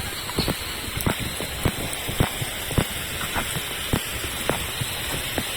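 Steady rain falling, with irregular heavy drops tapping close by.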